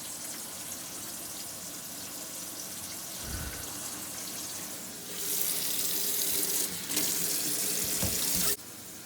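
Water running hard from a tap into a sink, a steady rush that gets louder about five seconds in and cuts off abruptly about half a second before the end, run as a test of the drain.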